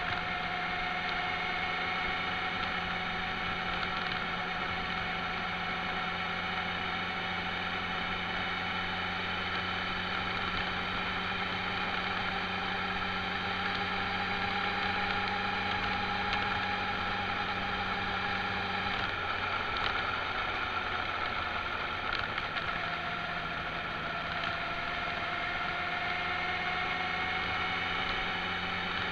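Engine of the camera's own road vehicle running steadily on the move, its whining note slowly rising and falling over road noise. About two-thirds of the way through the low part of the engine sound drops away, then returns a few seconds later.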